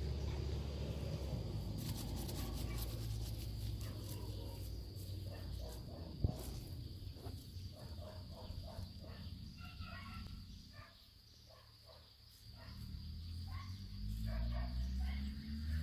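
Kittens moving about in short grass right by a ground-level microphone: rustling and brushing with a low rumble, which drops away for a moment about eleven seconds in, over a steady high-pitched drone.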